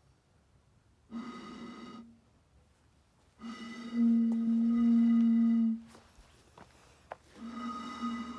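An old glass bottle blown across its mouth, giving hollow hooting tones at one steady low pitch: a short blow about a second in, a long louder blow of over two seconds in the middle, and another short one near the end.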